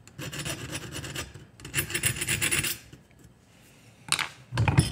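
Small half-round file rasping in quick short strokes over the steel jaws of pliers held in a vise, dressing the inside corners smooth, for about the first three seconds. It stops, then there is a short metallic clatter and a knock near the end.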